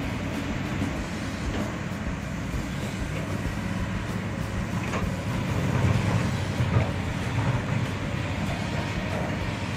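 Kobelco SK200 excavators' diesel engines running under load as they dig and load soil into dump trucks, a steady low rumble that swells louder for a second or two a little past the middle.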